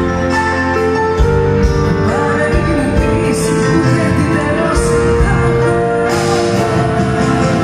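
Live band music with a woman singing into a microphone over keyboard and drums.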